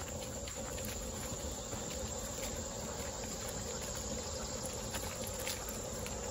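Steady insect drone in summer woods, with scattered light crunches of footsteps and dog paws on a leaf-strewn dirt trail.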